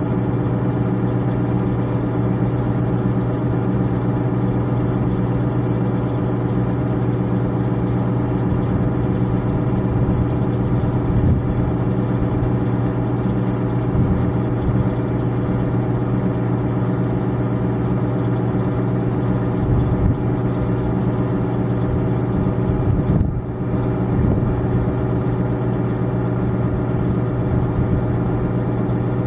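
A steady, low mechanical hum that keeps an even pitch, with a brief dip about 23 seconds in.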